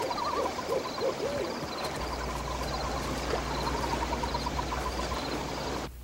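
An owl hooting a few times in the first couple of seconds, over a steady pulsing chirp in the background. A low hum comes in about two seconds in.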